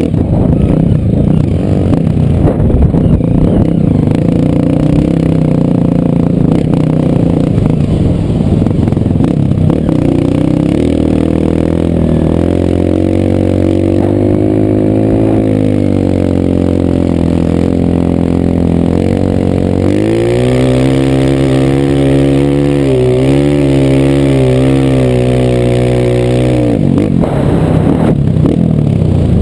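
Single-cylinder four-stroke trail motorcycle engine running loud under way, its pitch rising and falling with the throttle: rough and uneven at first, a rise and fall in revs in the middle, then a steadier run with small wavering revs and a brief drop near the end.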